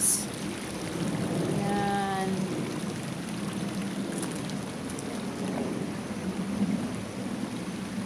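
Shallow stream running over flat rock slabs: a steady hiss of running water.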